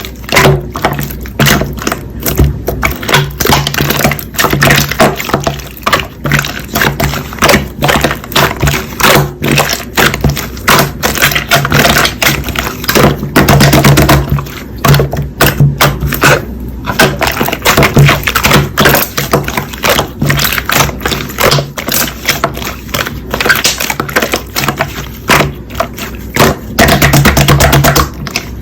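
Slime being squeezed, pressed and stretched by hand, making a dense, irregular run of sticky clicks and pops.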